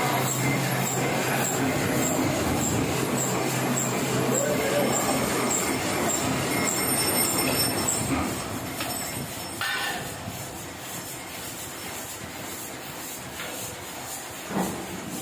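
Heidelberg offset printing press running with a steady mechanical hum and a regular tick about twice a second. About eight seconds in it winds down and the sound drops away, leaving a quieter hum broken by a couple of short knocks.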